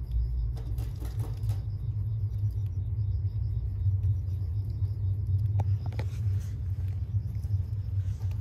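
A steady low rumble, with insects chirping faintly in a quick, even pulse above it.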